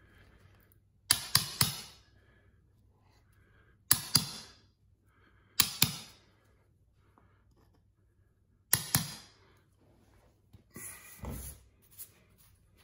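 Hammer striking the steel blade of a carpet stair tool to tuck the carpet edge in against the tile: four quick groups of two or three sharp metallic taps, then a few softer knocks near the end.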